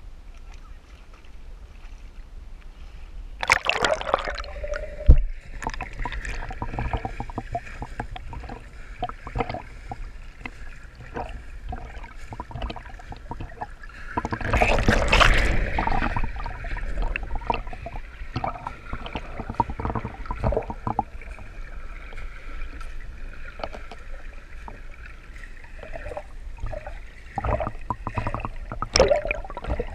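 Action camera in its waterproof housing dipped into shallow seawater on a pole: a splash about three and a half seconds in, then muffled underwater sound with scattered clicks and a steady drone, a louder rush of water around the middle, and splashing again as it comes back up near the end.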